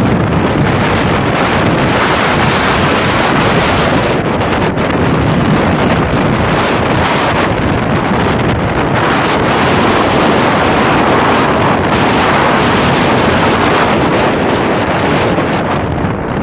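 Loud, steady wind rushing over the microphone.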